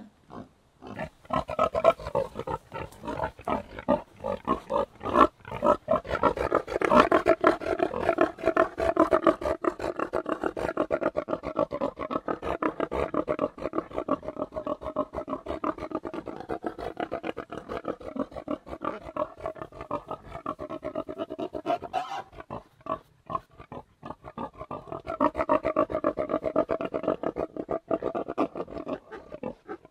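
A group of pigs grunting in a dense run of rapid, overlapping grunts. It starts about a second in, thins out for a few seconds past the twenty-second mark, then builds again.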